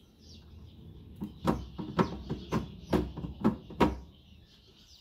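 A hand pressing and pushing on the plastic speaker panel inside a rear-projection TV cabinet makes a quick run of about seven sharp knocks, a little over a second in and about two a second.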